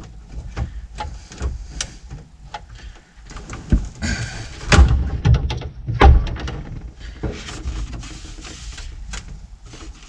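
Hard parts being pushed, knocked and worked into a truck's dash during a test fit: scattered clicks and knocks, with two louder thumps about five and six seconds in and a brief scrape between them.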